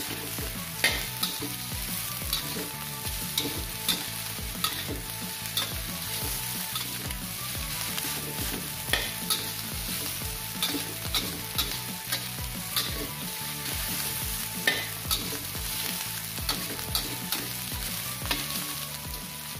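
Fried rice sizzling in a steel wok as a metal spatula stir-fries it, with repeated sharp clinks and scrapes of the spatula against the wok about every half second to second.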